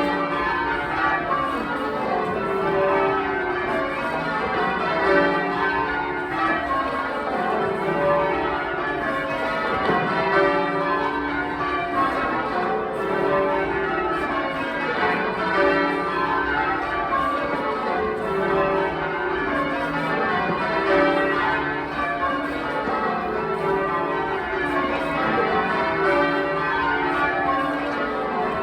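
Ring of twelve church bells, the back ten cast in 1937, being rung full-circle in rounds. Each bell strikes in turn from the highest to the deep tenor, in descending runs that repeat every couple of seconds.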